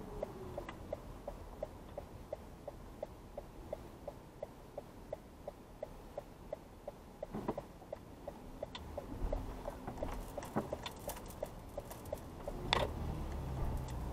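A car's turn-signal indicator ticking in the cabin, about three even ticks a second, stopping about two-thirds of the way through once the turn is made. A few scattered clicks and one sharper knock follow near the end.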